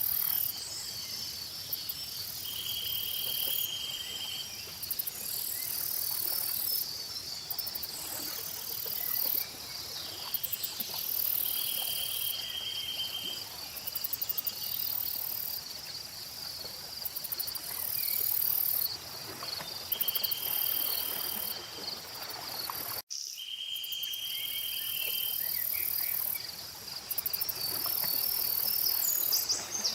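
Chorus of insects chirring: a steady high trill under a very high, shrill chorus that swells and fades, with a short buzzing call repeating every several seconds. The whole sound cuts out for an instant about three-quarters of the way through.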